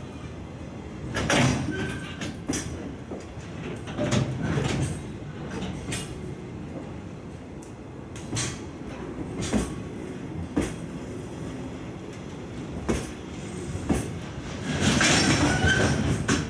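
JR Freight Koki 104 container flat wagons rolling slowly past, their wheels knocking over rail joints in irregular clacks over a steady rumble. Near the end the wheel noise grows louder with a short squeal as the train slows on its arrival.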